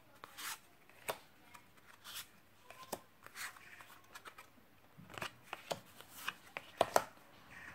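Cardstock circles handled and laid out one by one on sheets of scrapbook paper: scattered light clicks, taps and paper rustles, more frequent near the end.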